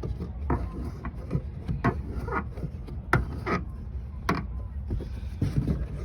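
Irregular clicks and knocks from a car's tail light parts being handled, about eight over six seconds, over a steady low rumble.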